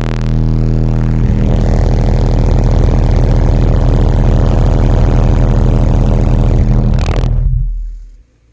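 Two Digital Designs Z9512 12-inch subwoofers in a sealed box play a 40 Hz test tone at full power in a short SPL 'burp', which reads about 149.6 dB on a Termlab. It is a very loud, steady low drone with a buzzy edge that cuts off about seven and a half seconds in.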